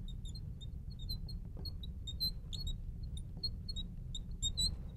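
Marker squeaking on a glass lightboard while writing: many short, high chirps in quick irregular strings, over a low steady hum.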